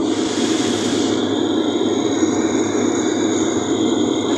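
Steady cabin noise of an airliner descending on approach with its landing gear down. A steady high whine joins the noise about a second in.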